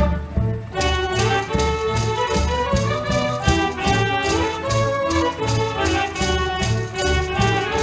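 Mechanical dance organ playing a tune live: pipe and reed voices carrying the melody over a steady bass beat of about two a second, with regular strikes from its built-in snare drum and cymbal.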